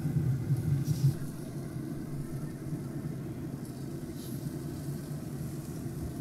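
Steady low hum of a Traeger pellet grill's fan running, with a few light clicks of metal tongs against the grill grate, about a second in and again around four seconds.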